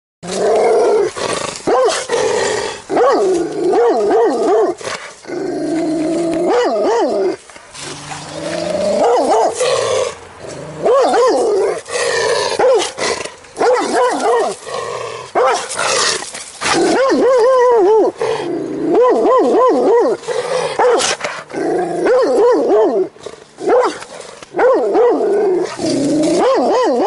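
German shepherd barking repeatedly in quick runs of several barks, with short pauses between the runs.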